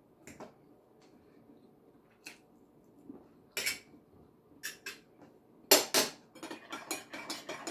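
A metal fork clinking and scraping on a plate in scattered single taps. The loudest clatter comes about six seconds in, followed by a quick run of small clinks near the end.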